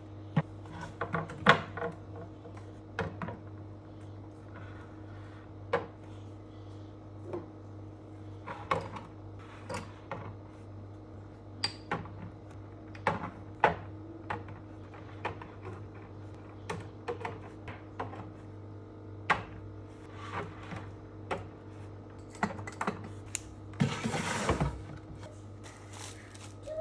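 Irregular light clicks and knocks of household items being handled during kitchen cleaning, over a steady low hum. A short rushing noise comes about 24 seconds in.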